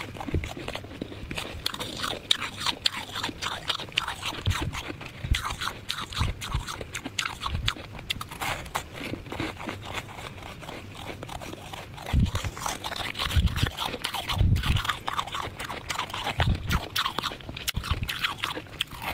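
Soft freezer frost ice being bitten and chewed close to the microphone: a dense run of crisp crunches, with several dull thumps in the second half.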